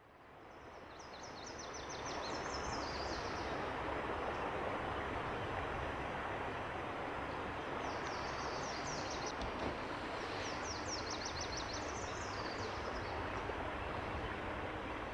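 A steady outdoor rushing noise that fades in over the first two seconds, with a songbird singing three short, high, rapid trills over it.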